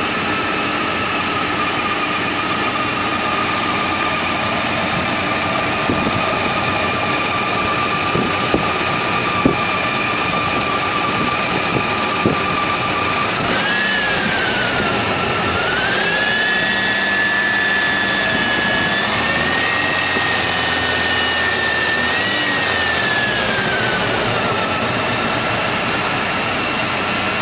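Chevrolet S10 2.2-litre four-cylinder engine running warm with a steady, high-pitched squeal over the engine sound. About halfway through the squeal jumps higher and wavers, holds there for several seconds, then slides back down to its first pitch.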